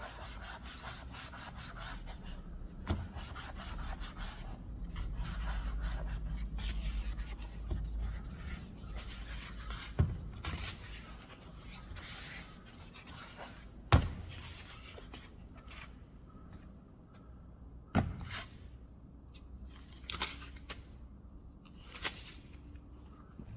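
Hand rubbing on a wooden workpiece, a steady scraping friction that dies down about halfway through. Sharp knocks of wood on wood come every few seconds, the loudest about ten and fourteen seconds in.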